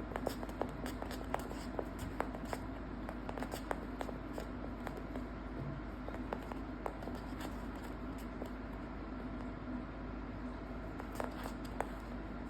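Scattered light clicks and taps at irregular intervals, thickest in the first few seconds and again near the end, from a kitten's paws and claws at play. A steady low hum runs underneath.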